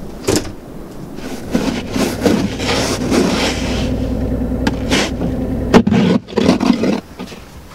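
Snow brush sweeping and scraping snow off a car's windshield in uneven strokes, with a few sharp knocks, over a steady low hum.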